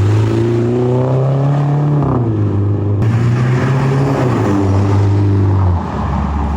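A Mini's engine revving with its muffler removed, loud and unmuffled. The revs climb for about two seconds and fall back, rise and fall again, then the level drops near the end.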